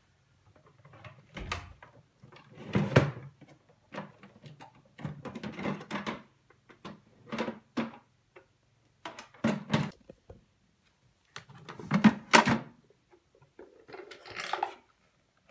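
Plastic parts of a Zelmer Wodnik 619.5 canister vacuum being taken apart by hand, the machine switched off: irregular clunks, knocks and rattles as the insert is lifted out of the container. The loudest knocks come about three seconds in and again about three-quarters through.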